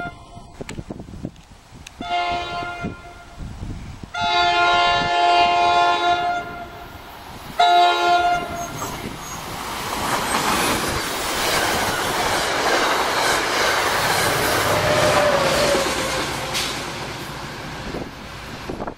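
Commuter train's horn sounding three blasts (short, long, short) as the train approaches. The push-pull train then runs past with rising wheel and rail noise, led by cab car 6081 and pushed by GP40FH-2 diesel locomotive 4902, with a brief thin squeal about fifteen seconds in.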